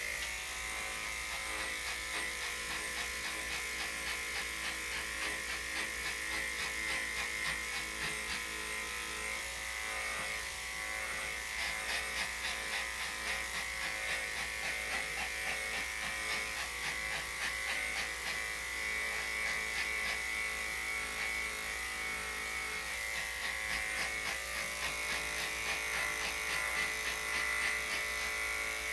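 Electric dog grooming clippers fitted with a #5 blade running steadily, a continuous motor hum, as they shave through a dog's thick, slightly matted coat.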